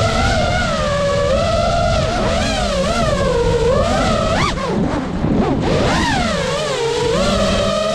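FPV quadcopter's brushless motors and propellers whining, the pitch rising and falling constantly with the throttle, dropping and swooping sharply about halfway through before climbing again, over a low rumble.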